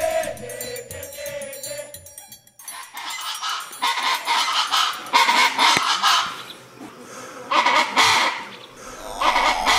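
Chaco chachalacas calling: loud, harsh repeated calls in three bursts, starting about three seconds in. Before them a held note of music fades out.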